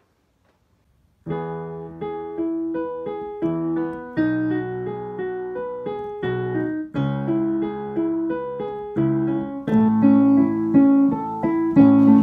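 Digital piano playing, starting about a second in: chords under a melody line, each note struck and then fading, growing louder toward the end.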